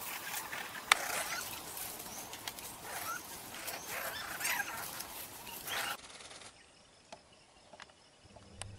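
Forest birds chirping and calling around a woodland pool, with splashing and wing flutters from a bathing greater necklaced laughingthrush, and a sharp click about a second in. After about six seconds the sound cuts off to near silence with a few faint ticks.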